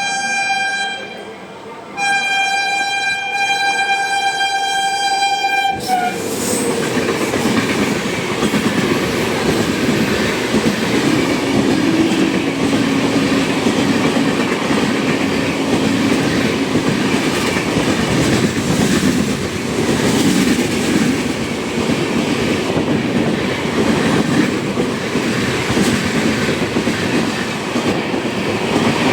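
A WAP-7 electric locomotive's horn sounds in two long blasts: the first ends about a second in, and the second runs for about four seconds. The horn cuts off as the express's coaches rush past at speed without stopping, making a loud, steady clatter of wheels on rail that continues to the end.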